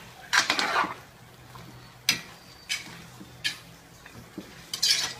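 Metal spoon scraping and knocking against a stainless steel pan while stirring a thick meat and tomato sauce. A longer scrape comes about half a second in, then several separate clicks and scrapes about a second apart.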